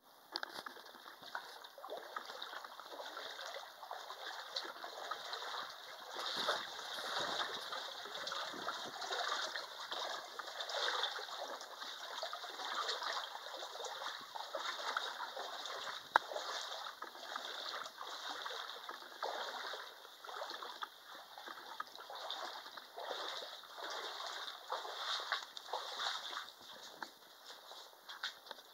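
Footsteps wading through shallow water, an irregular run of small splashes and sloshes, with one sharp click about halfway through.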